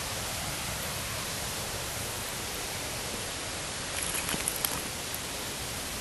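A steady, even hiss of outdoor background noise, with a few faint clicks and rustles about four to five seconds in.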